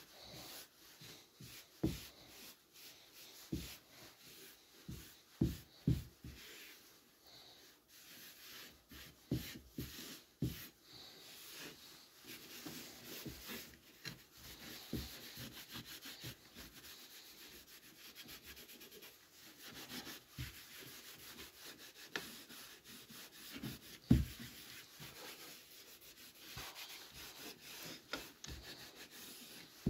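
A cloth rag rubbing a finish onto wooden clock-face panels: a faint, continuous scrubbing. It is broken by scattered light knocks as the loose panels are pressed and shifted, the loudest about three quarters of the way through.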